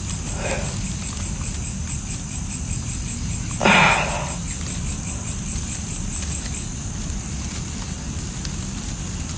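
Night insects chirring steadily at a high pitch over a low, steady rumble. A short, louder sound comes about four seconds in, and a fainter one about half a second in.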